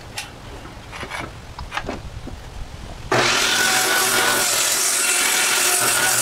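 Corded circular saw starting abruptly about three seconds in and running steadily as its blade cuts across the end of a wooden deck board to trim it. Before it, a few light knocks.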